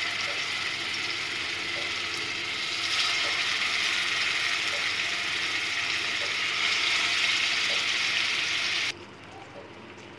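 Marinated seer fish steaks sizzling in hot oil as pieces are laid into the pan one at a time, the frying hiss swelling as pieces go in. Near the end the sizzle abruptly falls to a much quieter level.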